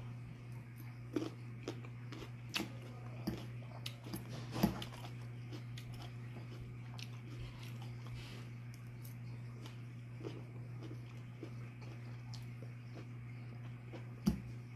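Close-up chewing and crunching of salad greens, cherry tomato and chicken, with a few sharp clicks of a metal fork against the bowl. A steady low hum runs underneath.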